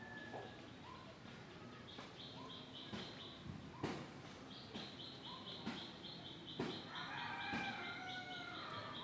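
Birds calling: a fast, even run of high chirps starts and stops several times, with short calls sliding in pitch near the end and a few sharp knocks in between.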